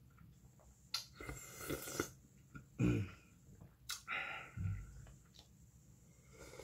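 Slurping and gulping swallows of soup broth drunk straight from an aluminium pot, with the loudest, lowest gulp about three seconds in and a couple of sharp clicks.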